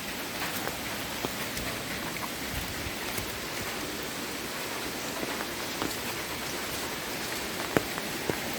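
Steady rain falling, an even hiss with scattered drops tapping, and two sharper ticks near the end.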